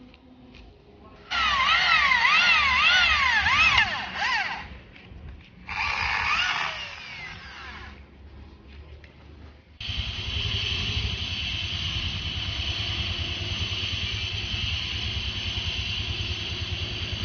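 Electric drill boring into metal: two bursts of a few seconds each with a squealing pitch that wavers up and down, then a steady, unbroken run from about ten seconds in.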